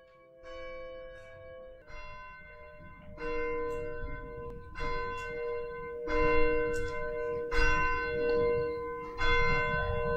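Church bell tolling: seven strokes about a second and a half apart, each ringing on, the strokes growing louder after the first few seconds.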